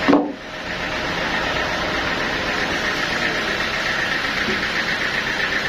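Sawmill machinery running steadily with an even mechanical hum, broken by one brief loud jolt just after the start.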